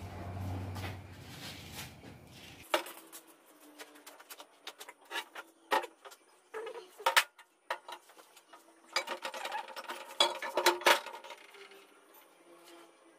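Scattered sharp metal clinks and knocks as a Mitsubishi 4D56 crankshaft is handled and set down into its main bearing shells in the engine block, most of them in a cluster near the end. A low hum runs for the first two or three seconds.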